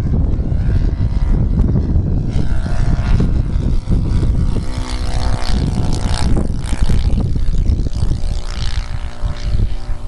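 An SC 120 four-stroke glow engine drives the propeller of a radio-controlled Hawker Sea Fury model in flight. Its droning note shifts in pitch as the model passes, over heavy wind rumble on the microphone.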